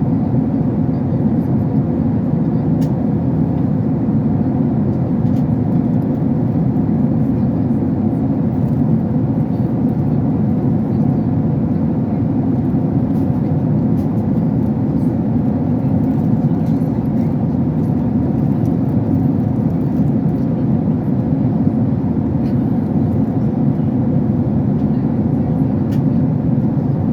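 Steady drone of a jet airliner in flight, heard inside the passenger cabin: engine and airflow noise, even and unbroken.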